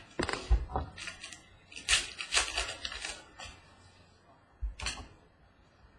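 Glossy trading cards being handled and flipped through by hand: clusters of light snaps and slides near the start and around two to three seconds in, and one more near five seconds.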